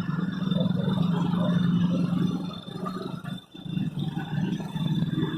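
Railway level-crossing warning siren sounding: a steady low buzzing tone with a faint thin high whine above it, breaking off briefly about three and a half seconds in before starting again.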